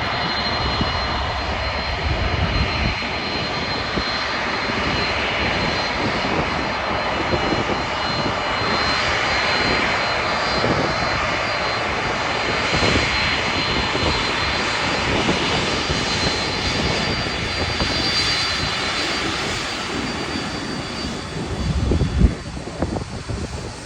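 Boeing 767-316(ER) jet engines running at high power for takeoff: a steady dense roar with a thin high whine over it. Near the end the roar drops a little, with a few low thumps.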